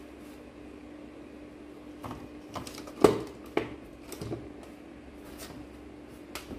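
A dental-chair solenoid valve clicking as 30 V DC is touched to its coil wires, the plunger snapping over with each make and break of contact: a run of sharp clicks, the loudest about three seconds in, over a steady low hum.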